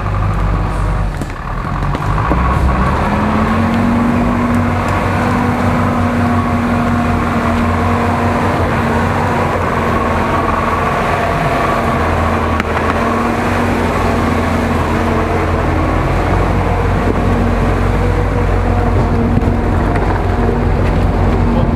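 GAZ-66 off-road truck's engine working under load, crawling through mud and undergrowth. It rises in pitch and loudness over the first few seconds, then holds a steady, loud drone as the truck comes up close.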